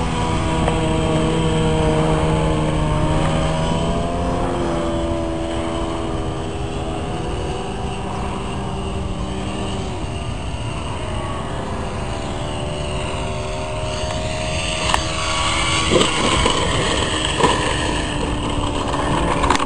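Radio-controlled model biplane's motor and propeller droning in flight. The pitch holds steady for the first few seconds, then rises and falls several times as the throttle changes. A few sharp knocks come near the end as the model comes in to land.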